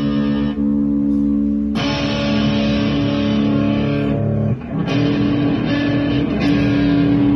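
Schecter C1 electric guitar, amplified, strumming a string of chords. Each chord is struck and left to ring for one to three seconds before the next.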